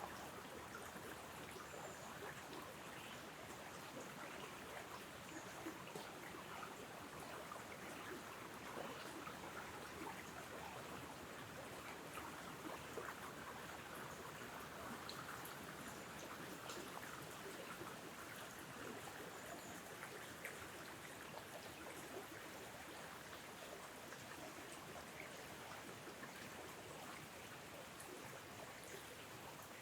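Wind blowing through tree tops: a steady, faint rushing of leaves with light ticks scattered through it.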